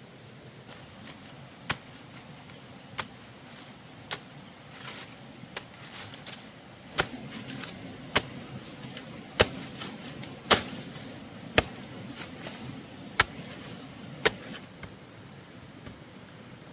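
A series of about a dozen sharp knocks at a steady pace of roughly one a second, with faint rustling between them.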